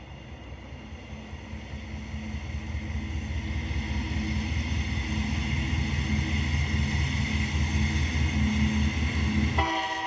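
Dubbed-in sound effect of a diesel freight train approaching: a pulsing low engine and rail rumble growing steadily louder, then a locomotive air horn sounding suddenly near the end, several tones at once.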